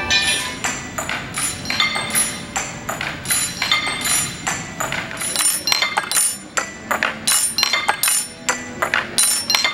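Tableware clinking: china plates, cups, a glass and metal cutlery struck in a fast, irregular run of sharp clinks, several a second, each ringing briefly at a different pitch.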